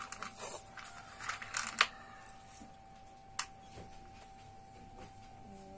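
Congkak playing pieces dropped one by one into the cups of a plastic congkak board: a scatter of light clicks, most of them in the first two seconds, then a single sharper click a little past halfway.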